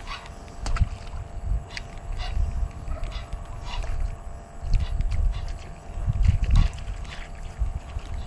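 Wind gusting on the microphone as a low rumble that swells and fades, with scattered short, high chirps through it.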